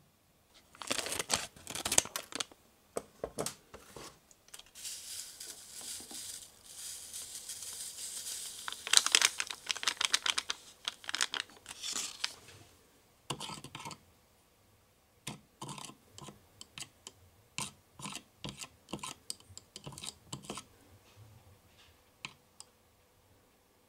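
Plastic Konapun powder sachet crinkling and tearing, then a steady hiss as the powder is shaken out of it into the pot. Afterwards a small plastic spatula stirs the mix, with a run of quick clicks against the clear plastic pot.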